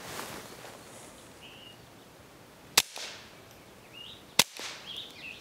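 Two suppressed shots from a Kel-Tec P17 .22 LR pistol, sharp cracks about a second and a half apart, pretty quiet for gunfire.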